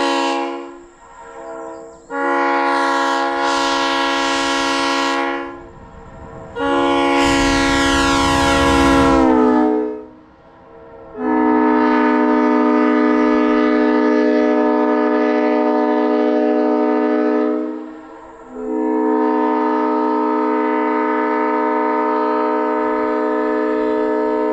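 Leslie SU3L Supertyfon three-chime train horn blowing a chord in repeated blasts: a short one at the start, then four long ones lasting about three to six seconds each, the longest in the middle. The third blast sags in pitch as it ends.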